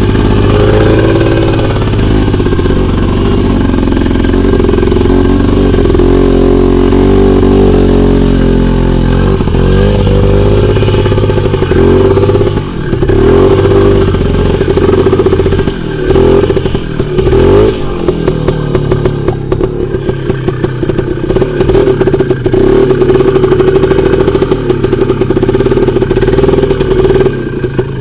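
Off-road motorcycle engine revving hard under load as it drives through a flooded, muddy rut. The pitch holds fairly steady at first, then rises and falls again and again from about ten seconds in, and turns choppy with clattering in the later part.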